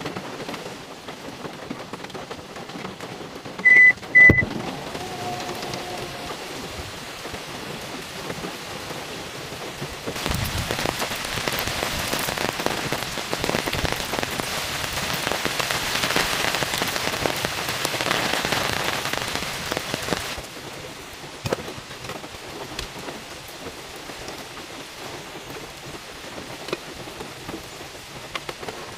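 Steady rain falling and pattering, heavier and louder through the middle stretch. About four seconds in come two short, loud, high beeps.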